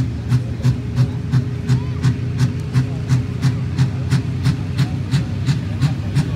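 A slow-running antique tractor engine with an even, pulsing beat of about three pulses a second over a steady low rumble.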